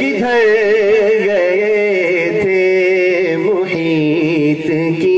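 A man's voice singing a naat unaccompanied, drawing out long held notes with wavering, ornamented pitch between lines of the verse.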